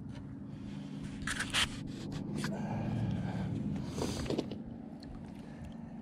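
Camouflage jacket fabric rubbing and scraping against a body-worn action camera as the wearer shifts, with sharper scrapes about one and a half seconds in and again about four seconds in, over a steady low hum.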